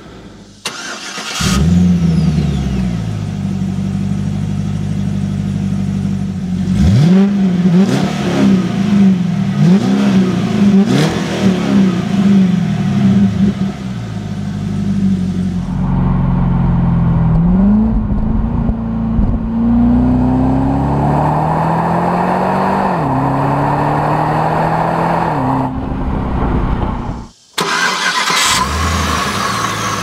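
2015 Cadillac CTS-V Coupe's supercharged 6.2-litre LSA V8 idling and revved in a series of quick blips that rise and fall back to idle. It is heard first from inside the cabin, then from outside at the dual exhaust tips.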